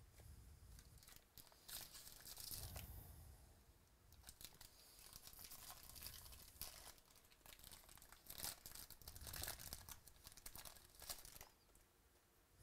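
Faint tearing and crinkling of a trading-card pack wrapper being ripped open and handled, in several crackly bursts.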